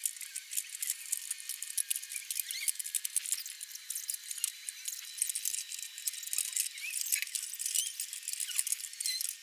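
Fast-forwarded recording of house painters at work, sped up about forty times: their voices and work noises turn into a quick chatter of high, squeaky chirps and clicks, with all low sound cut away.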